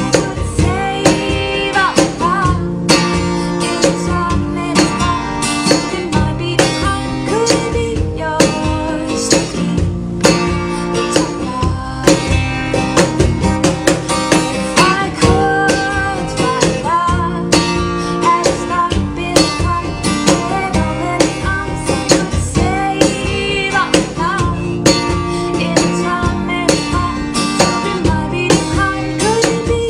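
Background music: a song led by acoustic guitar, with a steady beat.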